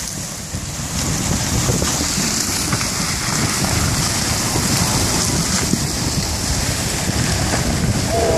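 Steady crackling hiss of jammed river ice along the bank, with wind buffeting the microphone.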